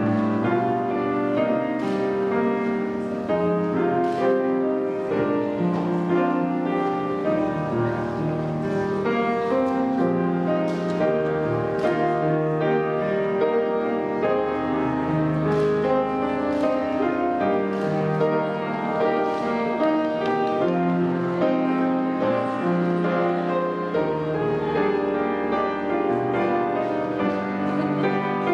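Instrumental piano music playing at a steady level, notes struck and held, with no singing.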